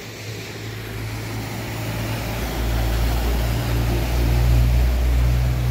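Small pickup truck driving through floodwater, its engine running as water splashes and surges around the wheels. The sound grows louder after about two seconds as the truck passes close.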